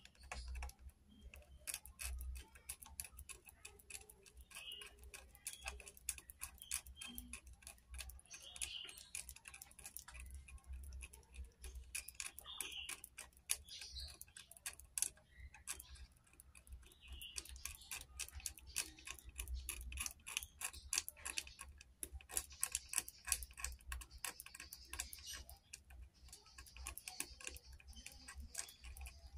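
Blade scraping the coating off a copper trace on an LED TV's circuit board, heard as faint, quick, irregular scratches and ticks.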